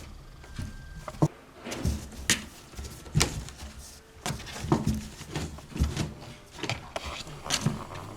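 Kittens playing and scrabbling about: irregular knocks, taps and scuffles, about a dozen in all, unevenly spaced.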